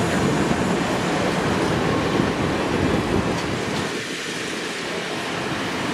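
A train rolling past on the rails with wheel clatter: the CP 2816 'Empress' steam excursion train. The rumble is steady and eases a little about two-thirds of the way through.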